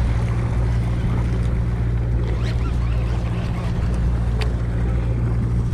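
Fishing boat's engine running with a steady low hum, over a haze of water and wind noise.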